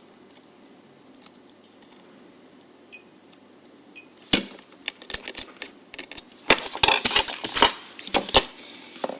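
Small metal parts and test leads being handled on a workbench: a sharp click about four seconds in, then a run of quick metallic clicks and clinks that ends shortly before the close.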